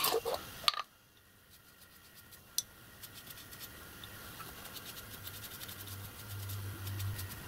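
Faint scratching and light ticking of a small brush and fingers working over a gas burner's brass fittings as the joints are checked for leaks.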